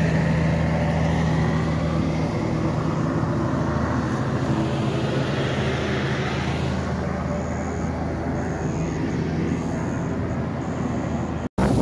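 Yamaha XTZ 150 motorcycle's single-cylinder four-stroke engine running at a steady pace while riding, over a steady rush of wind and road noise. The sound breaks off for an instant near the end.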